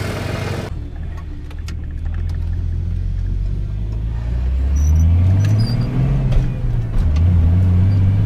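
Ford F-150 pickup's engine heard from inside the cab as the truck drives off, its pitch climbing with speed. The pitch drops once about seven seconds in at a shift of the manual gearbox, then climbs again. It is running on a freshly fitted fuel filter and pulling well.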